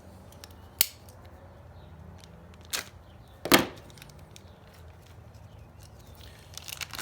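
Three sharp knocks from parts and paper being handled at a workbench: one about a second in, then two close together near three seconds, the last the loudest, over a faint steady hum.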